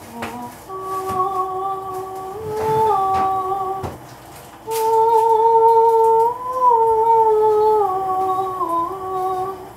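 A woman humming a slow tune in long held notes, in two phrases with a short break about four seconds in.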